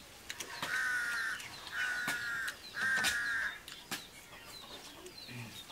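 A crow cawing three times, each caw lasting under a second with short gaps between.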